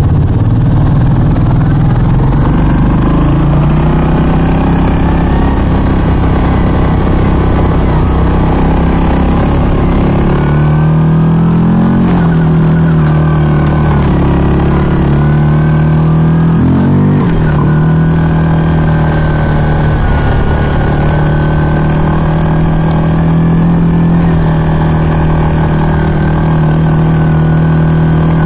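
ATV engine running under way on a trail. The pitch climbs about three seconds in, rises and falls several times in the middle, then holds steady.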